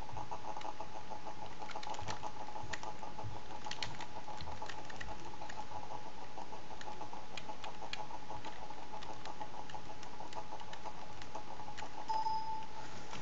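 Computer keyboard typing: irregular key clicks over a steady faint tone, with a short beep near the end.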